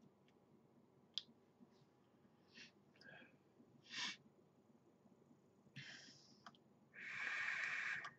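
A few soft breaths and small clicks, then a long draw on an e-cigarette near the end: about a second of steady rushing air through the atomizer.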